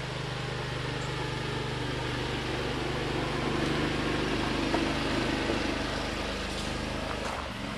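Small utility-vehicle engine of a John Deere Gator running steadily. It gets louder in the middle and dies away near the end.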